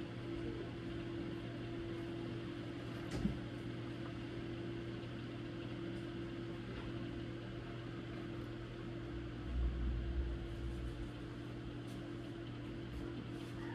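Steady electrical hum with a constant low tone, broken by a single sharp click about three seconds in and a few low bumps around ten seconds in.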